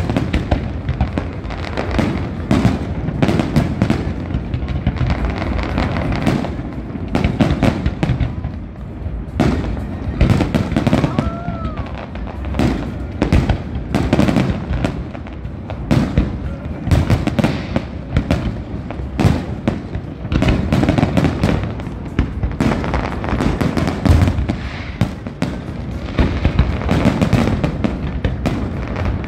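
Fireworks display: a continuous run of bangs and crackles, several each second, from many shells bursting at once.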